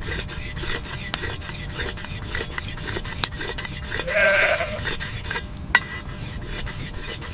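A flock animal bleats once, briefly, about four seconds in, over steady scraping and rustling with many small clicks.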